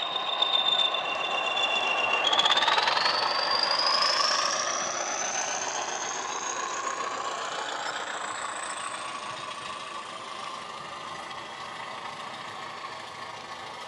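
Class 20 diesel engine sound played from a model locomotive's DCC sound decoder: the English Electric engine running with its high turbocharger whistle. The whistle dips slightly, then about two seconds in climbs steadily in pitch as the engine speeds up. The sound fades gradually as the locomotive draws its wagons away.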